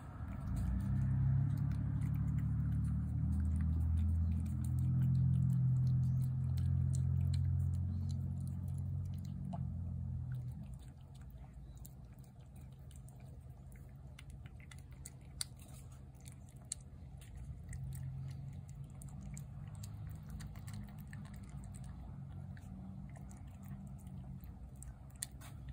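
A cat chewing wet cat food from a plate, with many small wet clicks. A loud low drone fills the first ten seconds, then drops to a fainter hum.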